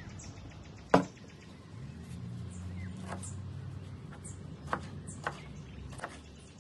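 A sharp knock about a second in as the plastic cutting board is set down on the table, then a chef's knife chopping fresh herbs on the board in a few separate, irregular strikes. Birds chirp in the background.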